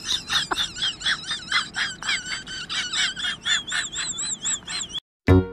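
A rapid series of short, high, wavering animal chirps, about four a second, cutting off suddenly about five seconds in.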